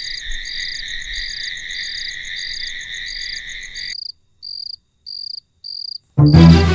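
Night chorus of crickets: a steady high drone with a sharp chirp repeating a little less than twice a second. About four seconds in the drone drops out and only the chirps go on, and near the end background music with strings comes in loudly over them.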